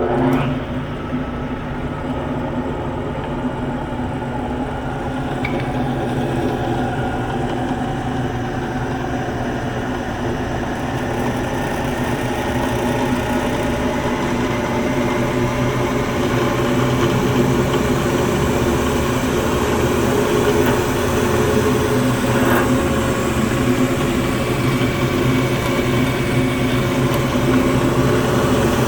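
Wilton 2221VS 20-inch variable-speed drill press with its 1.5 hp single-phase motor, just switched on and running with a steady mechanical hum that grows gradually louder.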